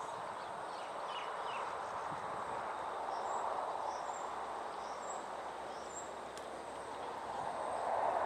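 Steady outdoor background noise with faint birds chirping: a run of short, high chirps about once or twice a second through the middle.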